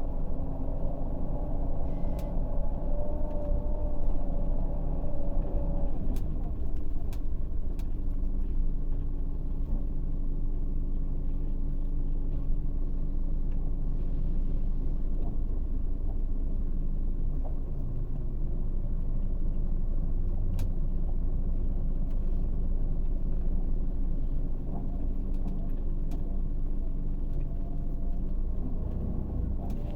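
Scania K400 bus engine running steadily, its sound mostly low-pitched and unchanging, with a few faint clicks.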